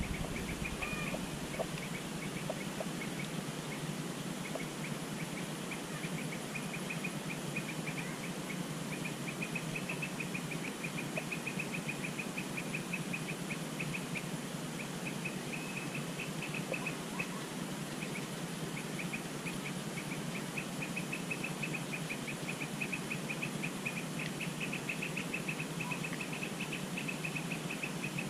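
An insect trilling, a rapid run of short pulses at one steady high pitch, over a steady background hiss. The trill comes in patches at first and runs without a break from about eight seconds in.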